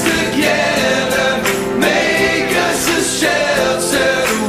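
Background music: a choir singing.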